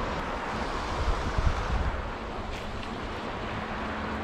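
Mountain river water rushing in a steady wash of noise, with the microphone buffeted by low rumbling bumps about a second in.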